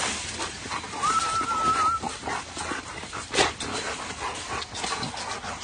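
Pit bulls jostling and scuffling around a bucket of food, one dog giving a high, wavering whine for about a second near the start. A sharp knock comes a little past halfway.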